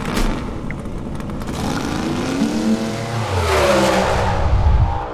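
A race car engine revving as a logo sound effect, its pitch climbing in the second half, then fading out at the end.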